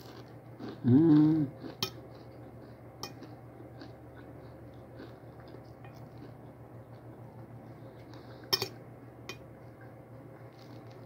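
A fork clicking against a plate in a few sharp, separate clinks, the loudest near the end, over a steady low hum. About a second in comes a short hummed "mm" from the eater.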